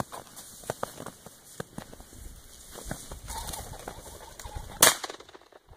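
A rooster pheasant cackling as it flushes, then a single shotgun shot a little over a second later, one sharp crack that is the loudest sound here. Light rustling and crunching of brush and snow underneath.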